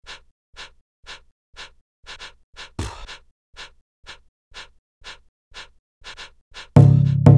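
Intro of an electronic dance track: short noisy percussive hits repeating about twice a second, with one heavier hit about three seconds in. Near the end the full beat comes in with heavy bass.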